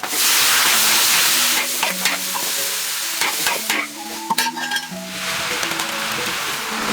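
Noodles sizzling loudly in a hot pan as they are stir-fried, with sharp clicks and scrapes of the utensil. The sizzle is loudest for the first second and a half, eases while the stirring clicks go on, and swells again near the end.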